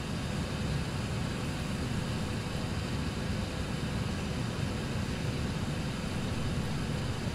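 Airbus A320 airliner cabin noise, played as the unattenuated reference with no earbuds: a steady rushing drone, heaviest at the low end, with a faint steady tone running through it.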